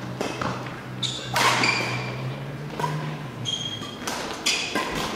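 Badminton players' court shoes squeaking on a sports-hall floor, with several short sharp knocks, over a low steady hum that stops about three and a half seconds in.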